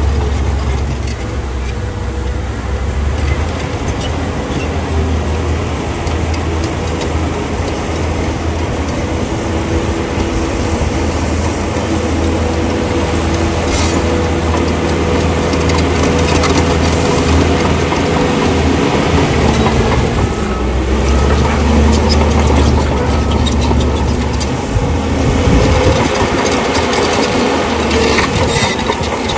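Heavy diesel earthmoving machinery running: a steady low engine drone that swells about two-thirds of the way through, with occasional metallic clanks.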